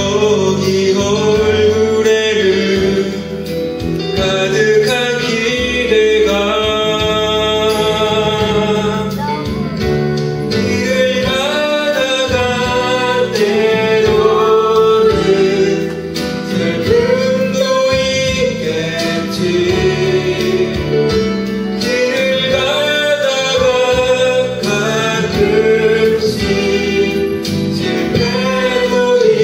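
A man and a woman singing a Christian worship song as a duet through handheld microphones, over an instrumental accompaniment.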